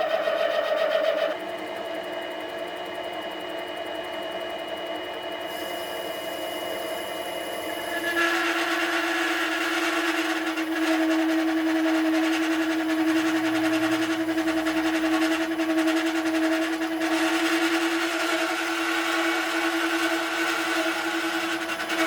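Clarke CL300 mini metal lathe running steadily with a constant motor whine while turning an aluminium canister. It drops in level about a second in and gets louder, with added hissy cutting noise, about eight seconds in.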